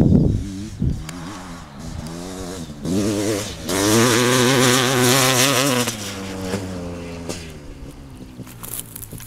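Honda CR500 two-stroke engine revving hard, its pitch wavering and climbing to the loudest run about four to six seconds in, then dropping and fading away. A few heavy low thumps come at the very start.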